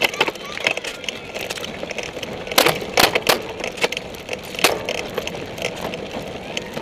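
Cyclocross bike riding over rough grass: the bike and its camera mount give a steady rattle and rumble, with a few sharp knocks around the middle.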